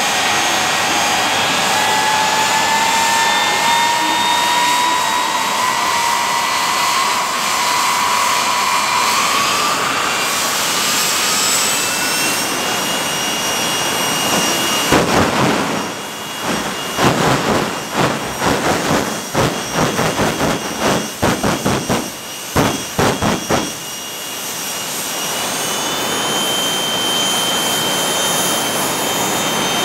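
Jet dragster's turbojet engine running on the start line: a steady high whine that slowly rises in pitch, then, from about halfway, a string of loud, sudden blasts several times a second for several seconds, typical of a jet car's afterburner being lit in short bursts, before it settles back to a steady whine.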